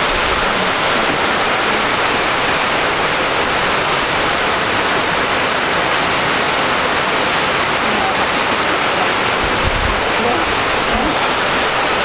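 Fountain jets splashing into a pool, a steady rushing of water.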